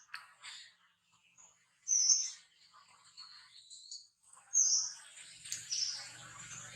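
Short, high-pitched animal chirps or squeaks, three loud ones about two seconds apart, with fainter chatter between. A low steady hum comes in near the end.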